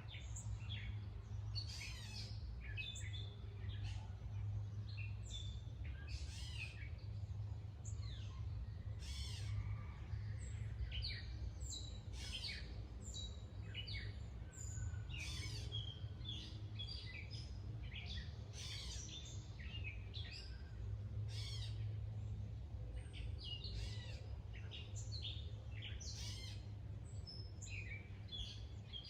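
Several birds calling and singing, a steady stream of short chirps and whistled notes that overlap one another, over a steady low rumble.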